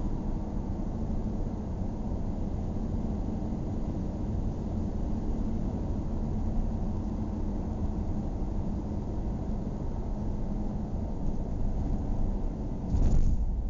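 Car driving slowly, with a steady low hum of engine and road noise. A brief louder rush of noise comes near the end.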